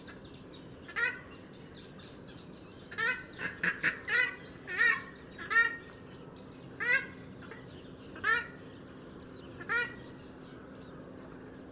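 A flock of purple swamphens calling: about a dozen short calls spread out irregularly, with a quick run of several calls from about three to six seconds in.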